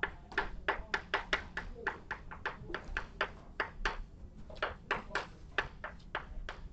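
Chalk writing on a blackboard: a quick, irregular run of sharp taps and clicks, about four a second, as the chalk strikes and drags across the board.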